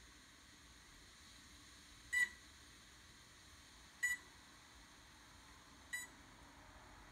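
Spektrum iX-series RC transmitter beeping: three short, identical beeps about two seconds apart over a faint hiss.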